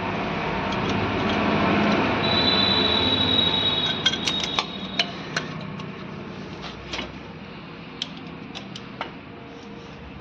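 A broad rumbling noise swells and fades over the first few seconds, with a thin high whine partway through. Then come sharp metallic clinks, several in quick succession about four seconds in and a few more spaced out near the end, as the brake shoe, handbrake cable and tools are handled during drum brake assembly.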